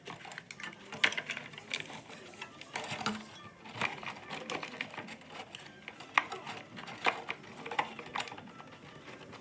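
Irregular clicks and light knocks, a few a second and unevenly spaced, from hand work on the fridge's wiring and fittings during the fridge guard installation.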